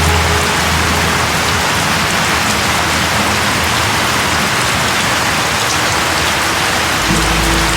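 Steady, dense rain falling and pattering on surfaces, an even hiss with no let-up. A few soft, low held tones sit under it at the very start and come in again near the end.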